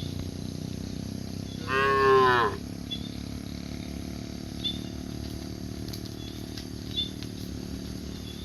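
A cow mooing once, a single pitched call of under a second that dips slightly in pitch at its end, about two seconds in.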